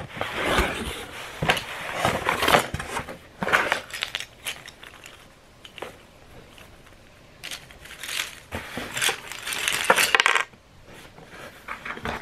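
Unboxing handling: a cardboard box opened and a clear plastic bag of small wooden game pieces pulled out, the plastic crinkling and the wooden pieces clicking together, in two spells with quieter handling between.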